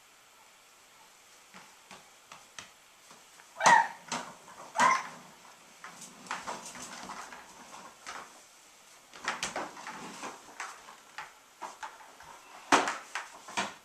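A toddler's short high squeals, two about four and five seconds in and another near the end, among scattered knocks and rattles of a plastic ride-on toy being handled and pushed across a wooden floor.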